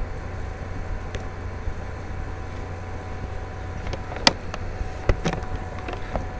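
Steady low hum and hiss of background noise, with a few sharp clicks, the loudest about four seconds in and a handful more soon after.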